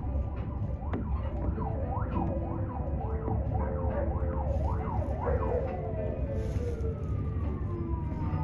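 Emergency vehicle siren yelping in quick rising-and-falling whoops for a few seconds, then winding down in one long falling tone, over a steady low rumble.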